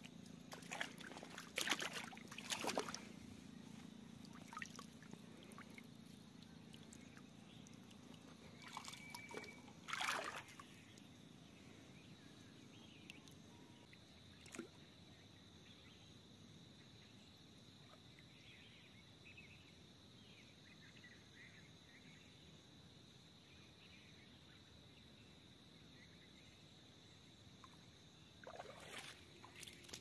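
Quiet outdoor ambience with a few sloshes and splashes of feet wading through shallow muddy water: several in the first seconds, one around ten seconds and more near the end. A faint steady high tone runs through the second half.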